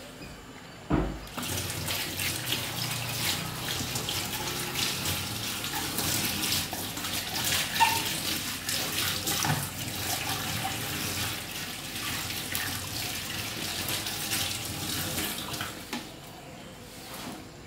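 Water running from a kitchen tap into a stainless steel sink while a blue plastic strainer is rinsed under it by hand, with small clatters of the plastic. It starts after a thump about a second in and stops shortly before the end.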